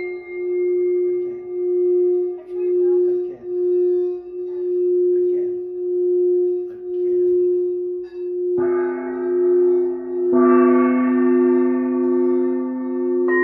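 Singing bowls ringing: one bowl holds a steady tone that swells and fades about once a second, and two more bowls are struck a couple of seconds apart in the last third, adding lower and higher ringing tones.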